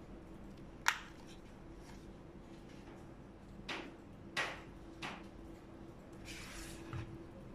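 Handling a pistol in a black nylon holster: a sharp click about a second in, then three light knocks and a short fabric rustle. It ends with a dull knock as the holstered pistol is set down on the table, over a low steady hum.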